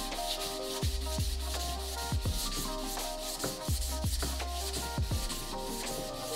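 Sandpaper rubbing back and forth along a wooden axe handle in repeated strokes, stripping off the old varnish. Background electronic music with a steady beat and deep drum hits plays underneath.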